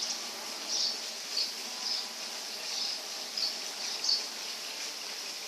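Forest ambience: short high chirps repeating roughly once or twice a second over a steady hiss.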